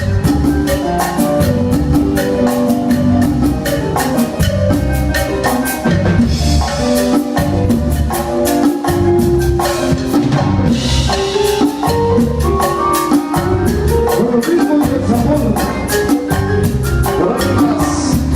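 Live cumbia band playing an instrumental passage: a keyboard melody over a pulsing bass line, with drums and a steady, fast percussion beat.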